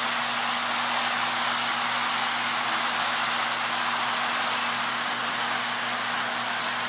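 Electric model train running on its track: a steady rolling rush of wheels on the rails over a low, even motor hum.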